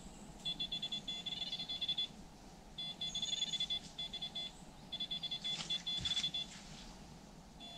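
Electronic bite alarm bleeping in fast runs, three bursts of rapid beeps each about a second and a half long, as a tench takes line on a very fast run. A few sharp clicks come about two thirds of the way through.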